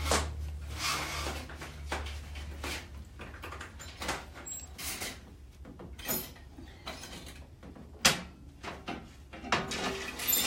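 Scattered knocks and clanks of cage parts and clips being handled and fitted, the sharpest about eight seconds in, over a low hum that stops about two seconds in.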